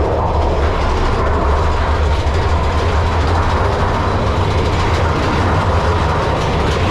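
Mine-train roller coaster cars running along the track through a tunnel, a steady loud rumble of wheels on rail.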